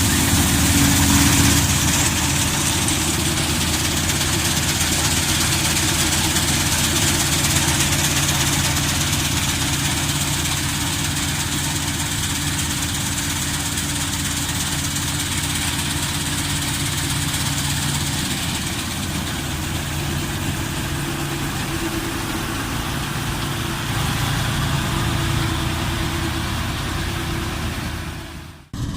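Laverda M152 combine harvester running steadily, a low engine drone under a high hiss. The sound drops out for a moment near the end.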